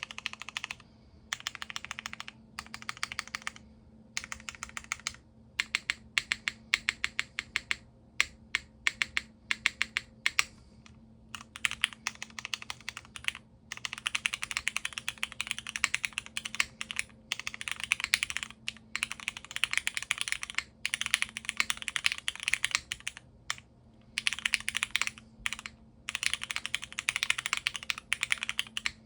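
Custom gasket-mounted mechanical keyboard with linear Cherry MX Black switches in a polycarbonate plate and GMK keycaps, typed on in fast bursts of keystrokes with short pauses between them. A faint steady hum lies underneath.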